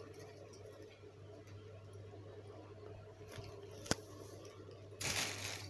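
Plastic carrier bag crinkling as cats play inside it and paw at it: faint for most of the time, with one sharp click about four seconds in and a louder burst of crinkling near the end.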